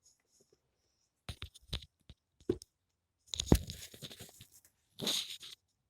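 Scattered small knocks, clicks and rustling, as of things being handled, with one sharper thump about three and a half seconds in and a short rustle near the end.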